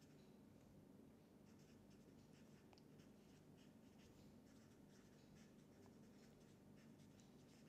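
Faint felt-tip marker writing on paper: a run of short, irregular stroke sounds as words are written out by hand.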